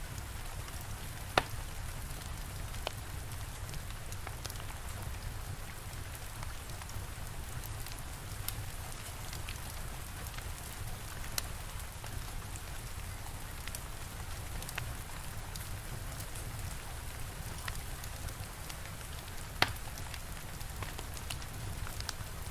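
Steady rain with the scattered crackle of a fire, two louder pops, one about a second in and one near the end.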